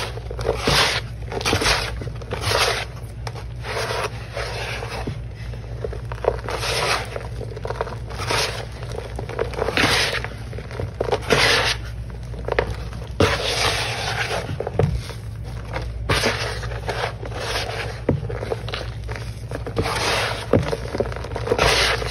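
Dry, powder-caked sponge pieces squeezed and rubbed by hand in a tub of blue cleaning powder, giving crunchy scraping and crackling. It comes in an uneven series of squeezes, about one every second or so.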